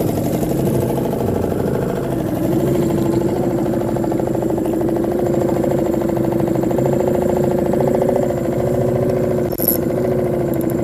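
Suzuki 2.5 hp outboard motor running steadily under way with a fast, even firing beat, its speed picking up slightly about two seconds in as the boat trolls.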